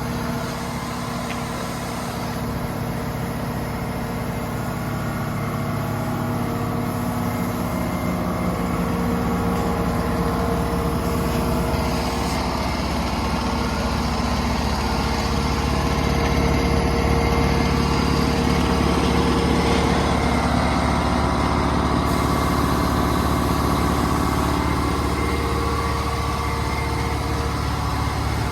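A steady engine or motor running, a low even hum with several steady tones, growing a little louder about halfway through.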